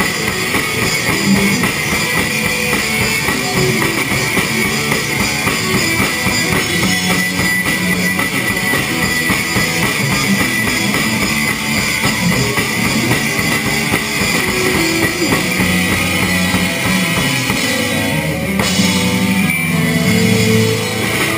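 A rock band playing live and loud: electric guitars, bass and a drum kit. Near the end the drumming drops away and the sound thins out.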